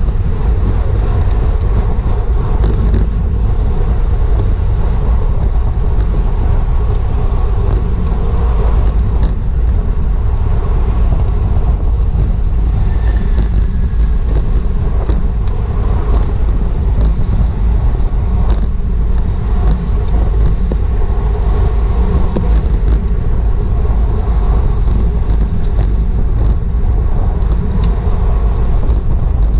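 Wind buffeting a GoPro's microphone on a bike in a criterium race: a loud, steady low rumble, with scattered sharp clicks throughout.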